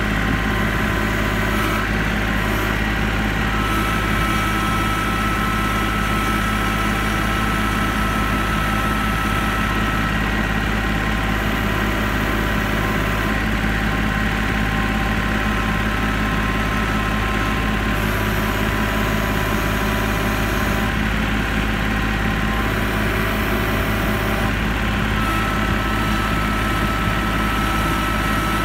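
Kubota L3901 tractor's three-cylinder diesel engine running at a steady speed, heard close up from the operator's seat while the tractor carries pallets on its loader forks. A thin high whine comes and goes over the engine.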